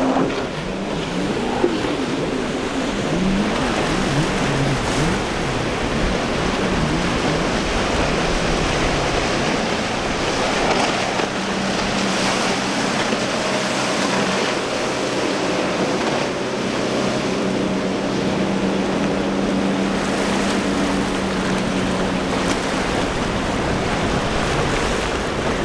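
Breaking surf and churning water with outboard motors running through it. Early on the engine pitch swings up and down as the throttle works over the waves. Later a steady engine drone holds for several seconds before fading near the end.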